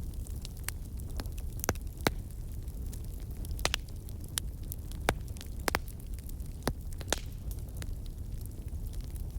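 Wood fire crackling: irregular sharp pops and snaps, about one or two a second, over a steady low rumble.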